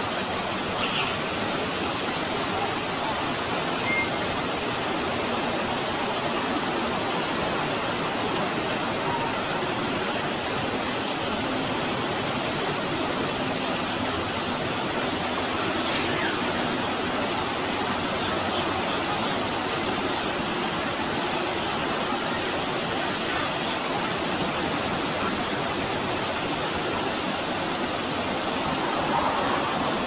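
Waterfall running steadily: a constant rush of water falling into a pool.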